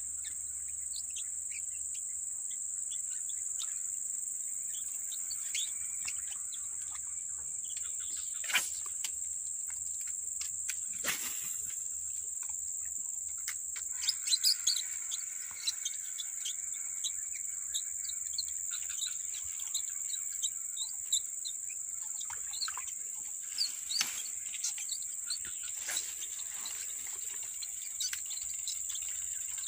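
Steady high-pitched insect chorus, like crickets, with scattered bird chirps and a few sharp clicks.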